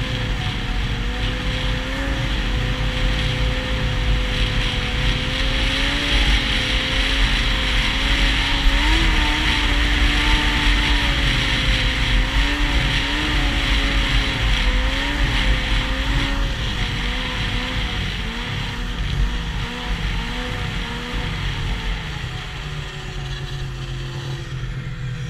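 Yamaha SX Viper snowmobile's 700 cc three-cylinder two-stroke engine running at a steady cruise, its pitch wavering slightly, then dropping lower over the last few seconds as the sled slows.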